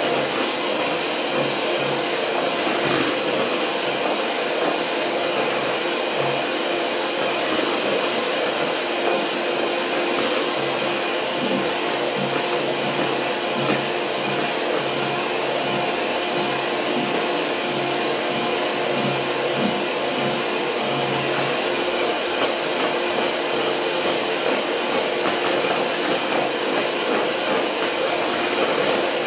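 Electric mixer running steadily at high speed, its beaters whipping cream with sugar in a bowl.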